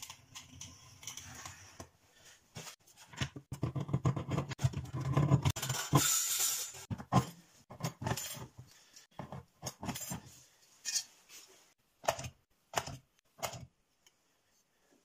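Thin sheet metal being worked by hand: scraping as it is scored along a steel rule, then metallic clinks and snipping clatter from a bench lever shear. The busiest stretch falls in the first half, with a few separate sharp metal knocks near the end.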